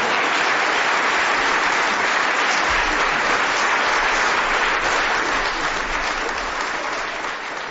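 Live audience applauding steadily, easing off slightly near the end.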